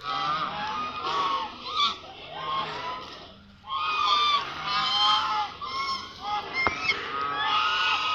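A flock of ducks calling loudly, many overlapping calls at once, with a brief lull about three and a half seconds in.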